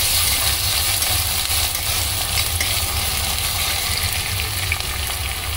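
Chopped onion, ginger, garlic and green chilli sizzling in hot oil in a metal kadhai, stirred with a steel spatula that scrapes the pan with faint ticks.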